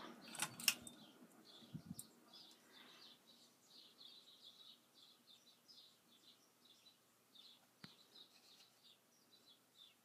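Moss TFB-42 ceiling fan's pull-chain switch clicking twice about half a second in as it is set to low speed, then the fan running barely audibly on low. Faint high chirps repeat in the background.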